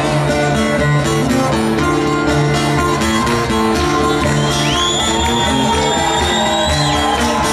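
Live band music in a pause between sung lines: a plucked Greek laouto over a steady rhythm, with a high held note sliding up and then sustained for about two seconds, about two-thirds of the way in.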